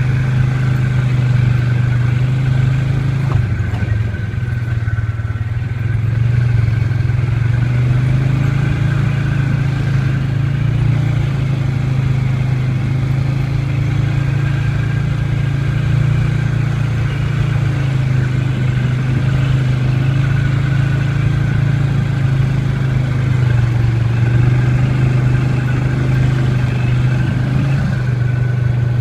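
ATV engine running steadily while riding a dirt trail, a constant low drone that holds nearly the same pitch throughout, dipping slightly about four seconds in.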